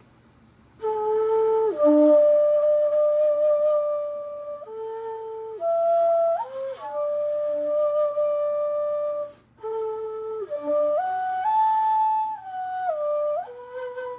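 Homemade ten-hole bamboo xiao, an end-blown flute, playing a slow melody of long held notes that step up and down. It starts about a second in and breaks off briefly a little past halfway.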